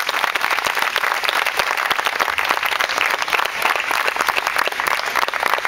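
An audience applauding, many hands clapping at once.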